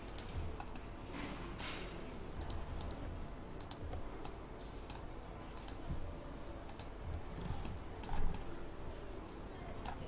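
Computer mouse and keyboard clicks: single sharp clicks at uneven intervals, roughly one every half second to second, over a faint steady background noise.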